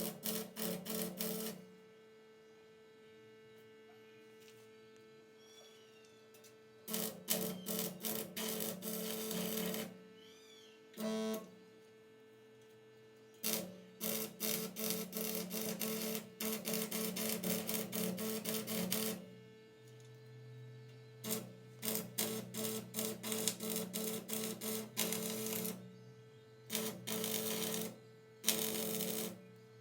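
Repeated bursts of rapid clicking or rattling, each lasting from a second to several seconds, over a steady electrical hum.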